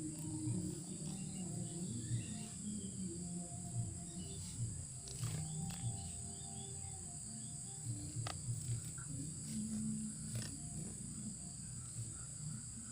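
White-breasted waterhens giving low, rapid, repeated calls, from the decoy bird and responding birds, over a steady high insect buzz.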